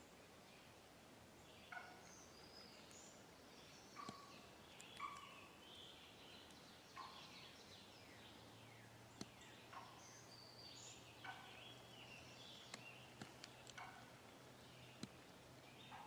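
Faint turkey calls, one short call every second or two, with songbirds chirping throughout and a few sharp clicks.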